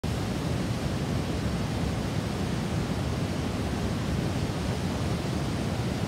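Waterfall rushing steadily in a narrow rock gorge: a dense, unbroken rush of water, deepest and strongest in the low range.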